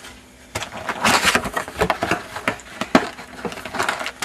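Cardboard hobby box and the foil-wrapped trading card packs inside it being handled: a quick, uneven run of crinkles and taps that starts about half a second in.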